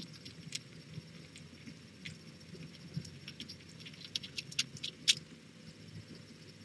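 Kittens nursing and moving about on a fleece blanket: scattered light clicks and pattering, coming thicker about four seconds in, with one sharper click a little after five seconds.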